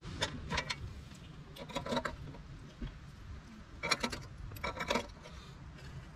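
Light metallic clinks and rattles of chopsticks against a small metal bowl as green onions are picked out, in four short clusters, the sharpest about four seconds in.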